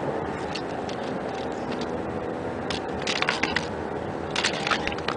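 Clusters of sharp clicks and crackles over a steady hiss, as a person handles an ice-fishing tip-up and its line on snow-covered ice.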